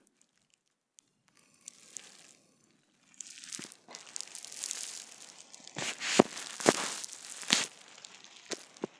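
Rustling and crinkling handling noise starting about three seconds in, with several sharp knocks in its second half.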